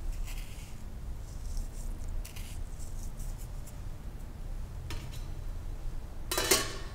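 Salt rubbed between the fingers and sprinkled from a small wooden bowl into a stainless steel pot of millet and water, making faint scattered grainy ticks. Near the end, the pot's stainless steel lid is set down on it with a short metallic clank that rings briefly, the loudest sound, all over a low steady hum.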